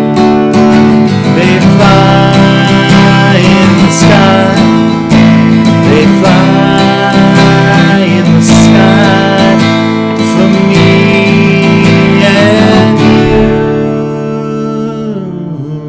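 Acoustic guitar strummed, the song ending on a final chord that rings out and fades over the last couple of seconds.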